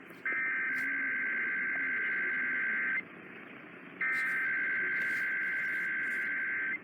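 Emergency Alert System SAME header data bursts heard over AM radio: two long bursts of raspy two-tone digital warble, each lasting nearly three seconds with about a second of static hiss between them. These bursts encode the alert header and signal the start of an EAS Required Monthly Test.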